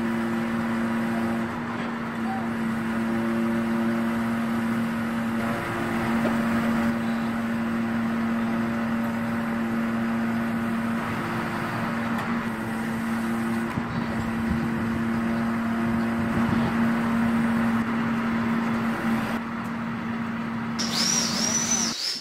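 Truck-mounted hydraulic loader crane at work: the truck's diesel engine and hydraulic pump run with a steady drone while the crane holds and lowers a load. The drone stops near the end.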